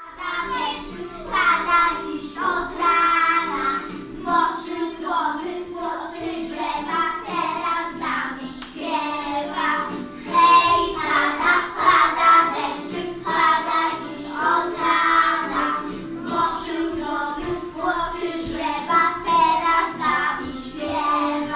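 Young children singing a song together over a musical accompaniment.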